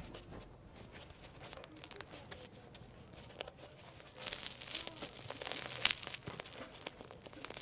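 A crusty bread roll crackling as it is squeezed in the hand, with the rustle of the cloth liner of a bread basket. The crackling is faint at first and becomes a denser run of small crackles from about four seconds in.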